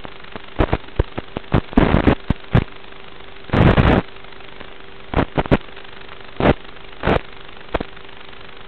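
Static hiss from an analog FPV video downlink with a thin steady hum, broken by about a dozen sudden crackling bursts of static where the signal breaks up; the longest burst lasts about half a second, some three and a half seconds in.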